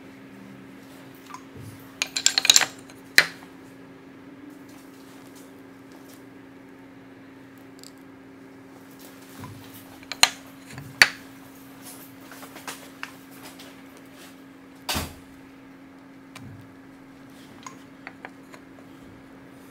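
Wooden axe handles clacking against each other and the workbench as they are shifted and set down. A quick rattle of clacks comes about two seconds in, then single knocks now and then, over a steady low hum.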